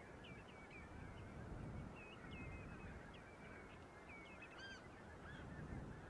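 A flock of geese calling: a faint chorus of many short, overlapping calls, with one clearer call near the end, over a low rumble.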